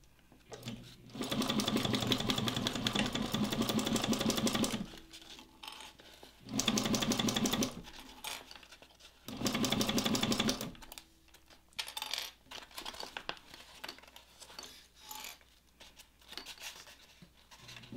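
Juki 1541 industrial walking-foot sewing machine stitching through canvas and leather layers in three runs: one of about three and a half seconds, then two short bursts. After that come light clicks and rustling as the work and its plastic clips are handled.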